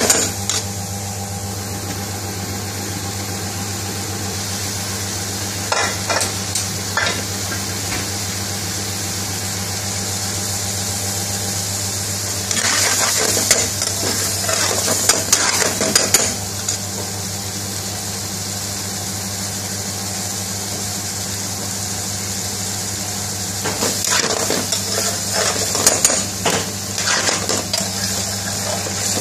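Chicken jalfrezi curry sizzling in a pan, with three spells of a utensil stirring and scraping against the pan, over a steady low hum.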